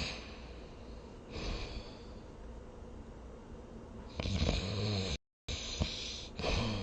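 A person snoring in their sleep: a soft breath about a second in, then a longer low-pitched snore from about four seconds, and another snore near the end. The audio cuts out to dead silence for a moment in the middle of the long snore.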